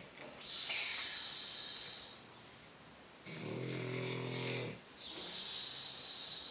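An elderly person snoring in sleep. A long hissing breath comes first, then a low, pitched snore about a second and a half long, then another long hissing breath.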